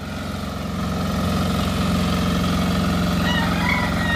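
Hand tractor (turtle tiller) engine running steadily, working hard as the machine churns through very soft, waterlogged paddy mud. It grows a little louder during the first second.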